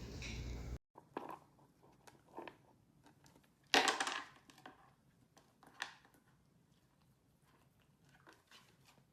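Dachshund chewing something crunchy, with a few separate crunches between quiet gaps; the loudest comes about four seconds in.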